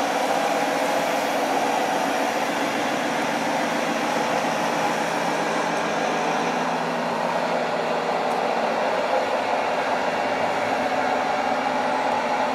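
Radio-controlled scale model truck driving slowly under load, giving a steady whirring drone with no distinct knocks or changes.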